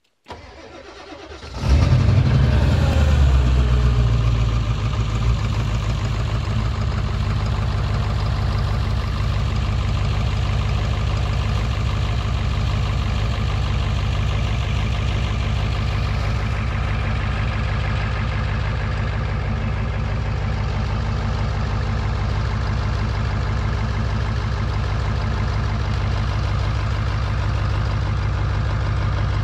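Ford 7.3 PowerStroke V8 turbo-diesel fitted with DIY 205/80 hybrid injectors cold-starting at −13 °C after an hour on the block heater. It cranks for about a second, then catches with a sudden loud start, and a few seconds later settles into a steady idle.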